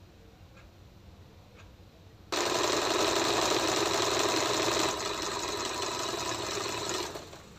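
Usha Janome electric sewing machine running at speed, stitching a straight row through a salwar cuff. It starts suddenly about two seconds in, eases a little partway through, and stops shortly before the end. A few faint ticks come before it starts.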